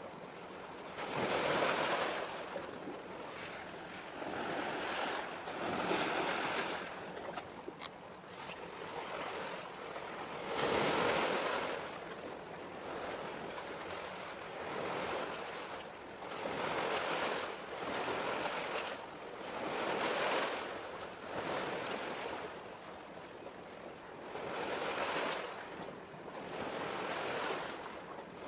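Sea waves washing in. A rush of water noise swells and fades every few seconds.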